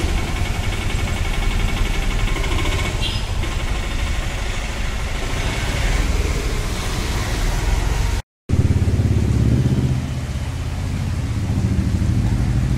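Traffic on a flooded street: a motor vehicle engine running under a steady rush of noise. After a sudden cut about two-thirds of the way in, a heavier low rumble takes over as the view turns to floodwater flowing down the road.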